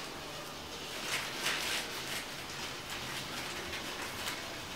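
Thin plastic bag crinkling in the hands as it is opened and handled, a few short crackly rustles, the longest about one and a half seconds in, over a faint steady background.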